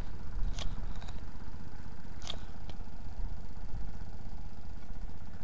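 Wind buffeting the microphone, a steady low rumble, with a few faint clicks about half a second, two and two and a half seconds in.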